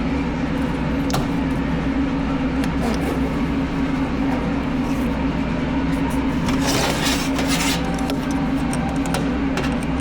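Machinery running steadily with a constant low hum, scattered clicks and rattles, and a louder hissing rush about seven seconds in.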